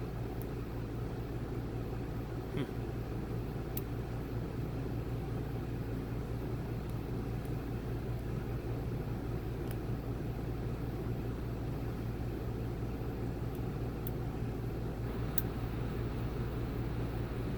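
A steady low background rumble, with a few faint, sparse clicks of lock-picking tools working the sliders of an EVVA EPS XP slider-sidebar lock.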